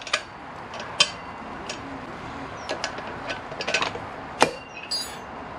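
Irregular sharp metal clicks and clinks as a pry bar works inside a motorcycle front wheel hub, pushing the loose steel bearing spacer across to the other side ready to drive out a wheel bearing. One louder knock comes about four and a half seconds in.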